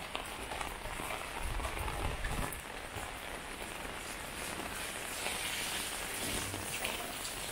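Steady rain falling on a wet lane and nearby surfaces: an even hiss with scattered drip ticks, and a brief low rumble about two seconds in.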